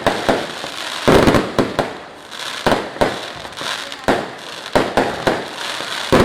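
Fireworks going off: a rapid, irregular series of sharp bangs with crackling between them, loudest in a cluster about a second in and again near the end.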